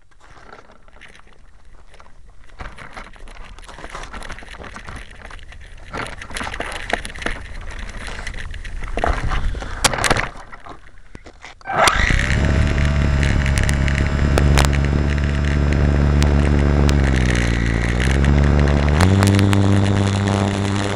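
Rustling and a few sharp knocks as the model plane is handled, then about halfway through the Super Cub RC plane's electric motor and propeller start abruptly with a loud, steady whine. Its pitch sags for a moment and then steps up higher near the end as the throttle is opened.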